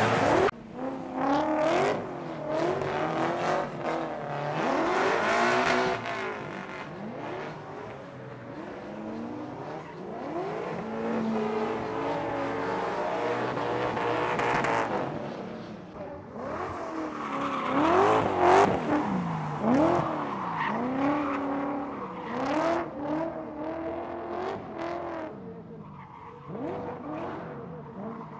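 Nissan Skyline GT-R R33's RB26DETT twin-turbo straight-six revving up and down again and again while drifting, over the hiss of sliding tyres.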